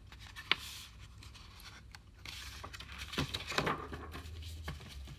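Rustling and a few soft knocks from a paperback picture book being handled and lowered close to the microphone.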